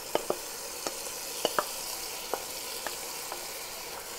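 Onions, celery and bell pepper sizzling steadily in butter in an enamelled Dutch oven as mashed mirliton is scraped in from a bowl with a wooden spoon. Several short, light clicks of the spoon and bowl against each other and the pot.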